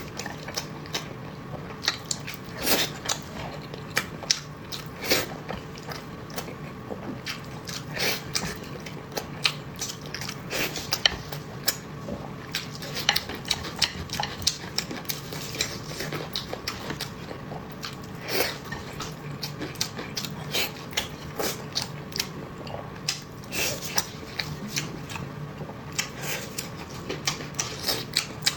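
A person chewing and biting food close to the microphone, with many irregular short smacks and clicks.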